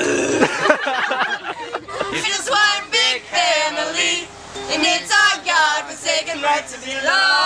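A group of teenagers singing together without instruments, their voices sliding up and down in pitch.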